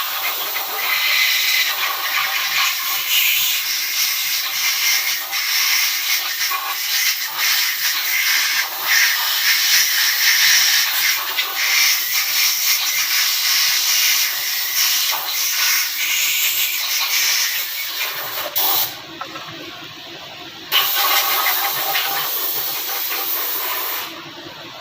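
Loud, steady hissing that stops for about two seconds near the end, comes back, then stops again.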